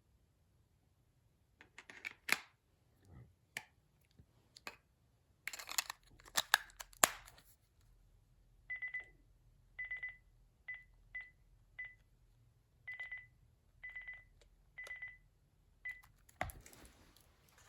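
Handling clicks and plastic knocks from a cordless phone handset, then a run of about ten short single-pitch key beeps from its keypad as buttons are pressed, some beeps longer than others.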